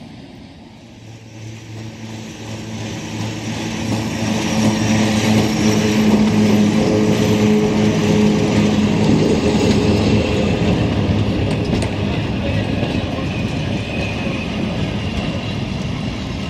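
Vintage metre-gauge passenger train rolling slowly past close by. A steady low hum and wheel-on-rail noise build up as the coaches come alongside, are loudest in the middle and ease off slightly near the end.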